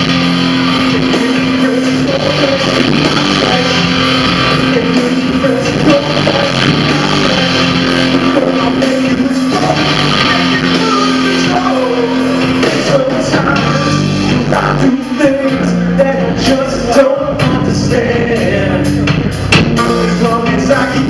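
A live band playing a slow R&B love song, with held chords and some singing over the accompaniment.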